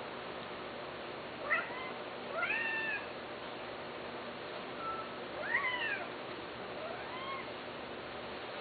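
Male domestic cat meowing four times, short arching calls spaced a few seconds apart, over a steady background hiss.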